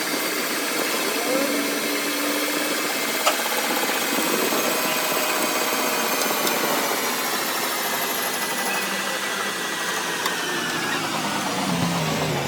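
Workshop machinery running steadily, with a high whine that slowly falls in pitch and a single sharp click about three seconds in.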